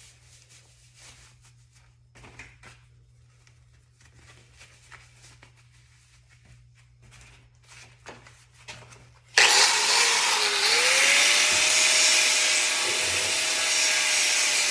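Faint clicks and handling noise, then about two-thirds in an angle grinder with a 36-grit disc starts and grinds rust off the car's steel body panel, its motor whine rising as it spins up and then holding steady under the loud grinding noise.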